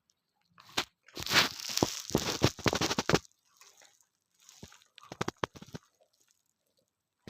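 Crunching and chewing of a hard bedtime snack, in dense bursts from about one to three seconds in, then sparser softer crunches that stop about six seconds in.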